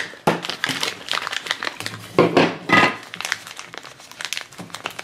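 Thin plastic wrapper crinkling in irregular bursts as it is peeled off a small toy.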